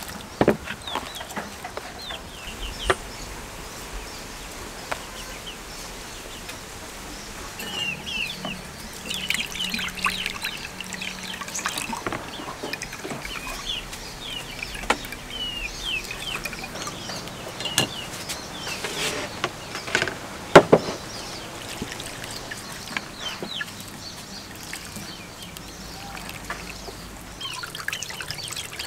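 Coconut milk being squeezed by hand from wet grated coconut and poured through a metal sieve into a bowl, with splashing and trickling liquid and a few sharp knocks of bowls, the loudest about two-thirds of the way through. Chickens cluck and chirp in the background through the middle stretch.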